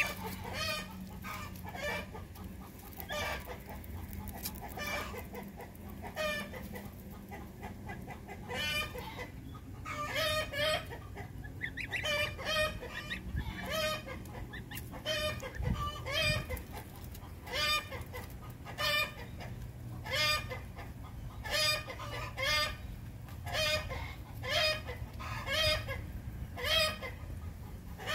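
Domestic poultry calling over and over, short pitched calls about once a second, coming more evenly after the first ten seconds, with a faint steady hum underneath.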